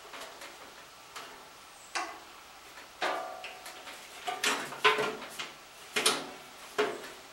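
Metal clicks and clunks from adjusting a 14-inch wood bandsaw by hand, an irregular string of sharp knocks, some with a brief metallic ring, busiest in the second half. The saw is not running.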